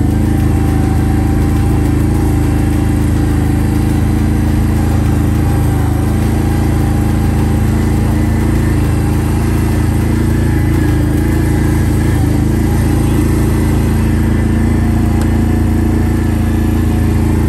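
An off-road vehicle's engine running at a steady speed as it drives along a sandy dirt track, heard from on board.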